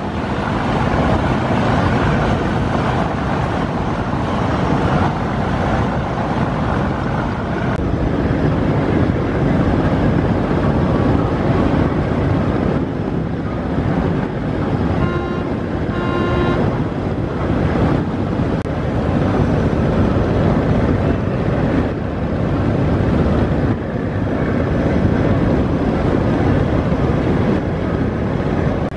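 Steady rush of wind on the microphone mixed with the churning wash of a large passenger river launch moving at speed. A brief pitched tone sounds twice about halfway through.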